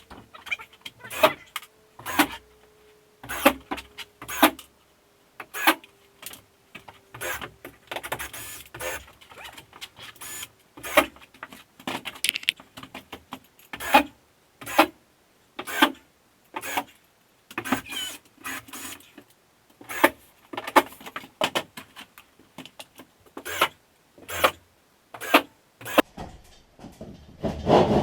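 Irregular series of short knocks and clicks from drywall work: sheetrock panels, screws and hand tools being handled.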